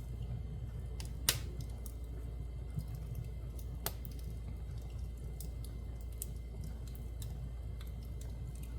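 Wood fire crackling in a fireplace: scattered snaps and pops over a steady low rumble, with a sharper pop about a second in and another a few seconds later.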